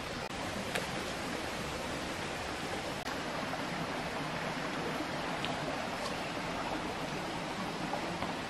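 Steady rushing of a flowing stream, with a few faint sharp clicks over it.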